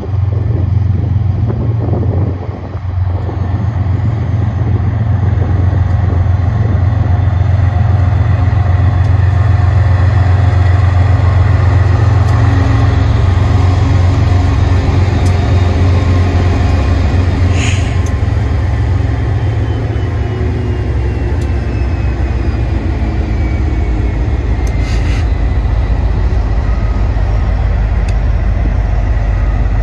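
Heavy freight train's diesel-electric locomotives running past with a steady deep engine rumble. In the second half a thin whine slides slowly down in pitch, and two brief high squeaks come through.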